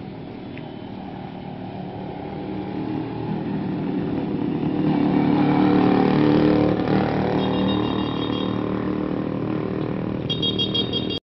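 A motor vehicle's engine passing close by, growing louder to a peak about halfway through and then easing off, with brief high-pitched tones twice near the end before the sound cuts off abruptly.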